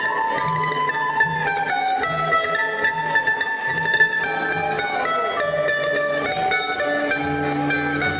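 Portuguese folk group playing a traditional tune on acoustic guitars and mandolins: a steady strummed and plucked accompaniment under a melody of held notes that step from one pitch to the next.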